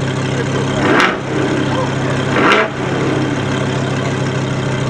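A GM LS V8 idling with a steady low rumble, revved briefly twice about a second and a half apart.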